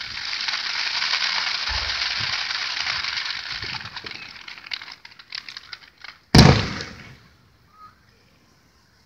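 Aerial fireworks: a dense crackling of a shell's crackling stars for about five seconds, thinning to a few scattered pops. Then one loud shell burst about six and a half seconds in, fading within half a second.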